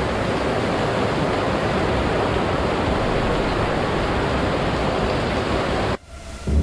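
Heavy rain falling steadily, with runoff pouring off a roof edge and splashing into a puddle; it cuts off suddenly near the end.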